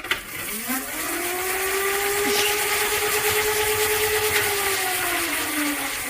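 Electric scooter motor, run straight off the scooter's battery, spinning the bike's chain drive: its whine rises as it spins up in the first second, holds steady, then drops in pitch as it winds down near the end, over a loud rushing noise.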